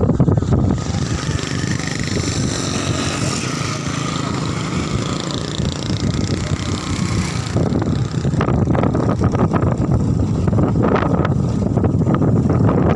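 Wind buffeting the microphone, a steady low rumble. A broad hiss joins about a second in and cuts off suddenly about seven and a half seconds in.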